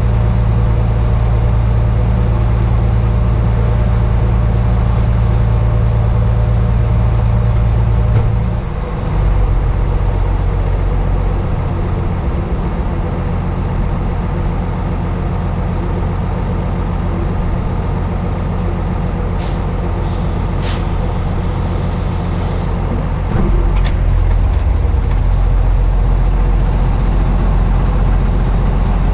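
Rollback wrecker truck's engine running steadily. Its pitch drops about a third of the way through and picks up again near the end. A hiss lasting a few seconds comes about two-thirds of the way through.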